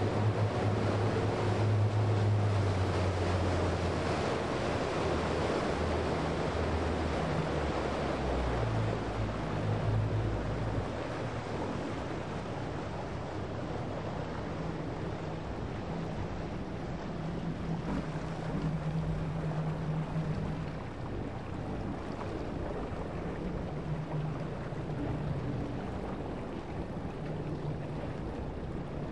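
Rushing wind and water at sea, heard from a boat running at speed, with a low motor drone underneath that shifts pitch every few seconds. It is louder for the first ten seconds or so, then steadies.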